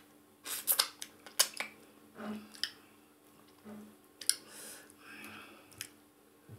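Wet eating sounds from fufu and slimy ogbono soup eaten by hand: sharp lip smacks and finger-licking clicks, a quick cluster in the first second and a half and a few more later, with soft squishes between.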